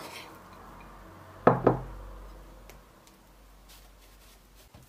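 A metal spoon knocking against a bowl while scooping out a sticky muesli-bar mixture: a tap at the start, then two loud knocks in quick succession about a second and a half in, with faint scraping ticks after.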